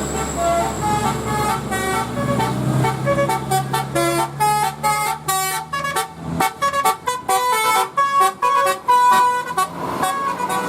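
Bus telolet horn, a multi-tone musical horn, playing a quick melody of short notes at changing pitches, ending on a few longer held notes. A bus engine runs low underneath for about the first six seconds, then drops away.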